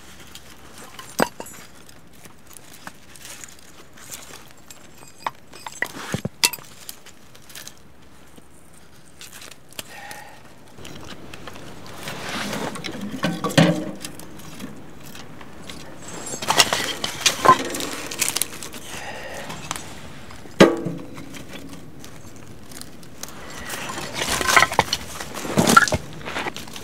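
Sparse light clicks and scrapes of a knife shaving feather sticks from firewood, then wooden split logs and shavings knocking and scraping as they are stacked into the firebox of a small metal wood stove, in several bursts with occasional sharp clinks.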